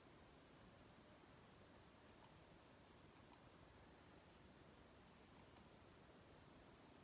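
Near silence: faint room tone with a few soft clicks, two close together about two seconds in, one a second later and two more about five and a half seconds in.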